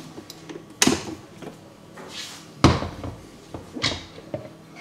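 Plastic knocks and clunks of a blender's lid and jug being handled and the lid unclipped, with no motor running: three sharp knocks, the loudest about two and a half seconds in.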